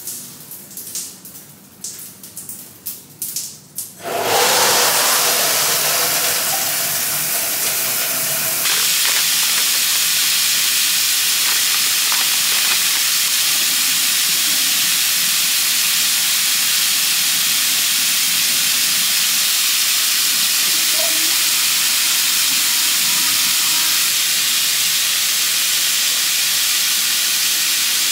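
A few light clicks and knocks, then a shower is turned on about four seconds in: water spraying steadily with a loud, even hiss, stepping up a little a few seconds later.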